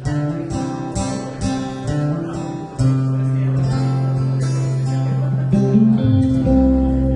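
Instrumental intro of a song played live: acoustic guitar strumming chords about twice a second over long, held low bass notes.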